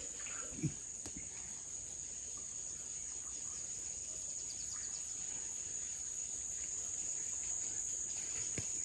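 Insects chirring in a steady high-pitched drone. A single short low sound comes just under a second in.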